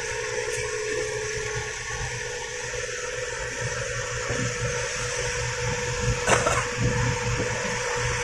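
Intercity bus exhaust with a low, uneven snoring growl ('ngorok'), over steady road and drizzle hiss and a steady engine hum. The rumble grows a little stronger after the middle, with one brief whoosh about six seconds in.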